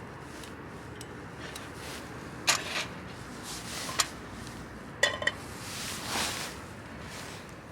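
A few sharp clinks and knocks of metal camp coffee gear being handled, the one about five seconds in ringing briefly, over the steady rush of the river.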